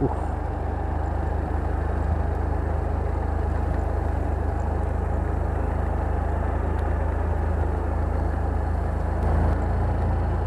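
Small motorcycle engine running steadily as the bike rides along, a constant low hum with an even pulse.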